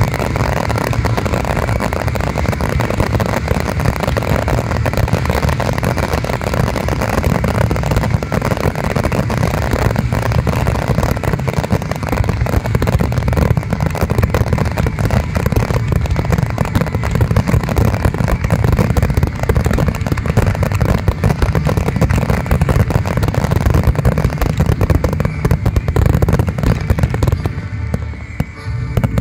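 Fireworks finale: a dense, continuous barrage of aerial shell bursts, with heavy low booms and crackle running together, easing briefly near the end.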